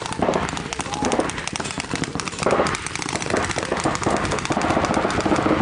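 Paintball markers firing in rapid strings, many shots a second from several guns at once, with players shouting over the fire.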